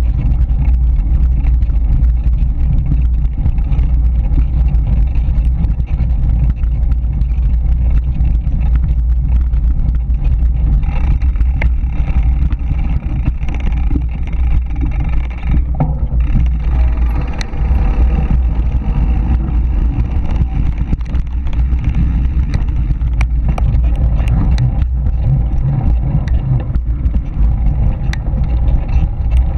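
Steady low rumble of wind buffeting the microphone of a camera on a mountain bike riding a dirt trail, with tyre noise on loose gravel and scattered sharp clicks and rattles from the bike.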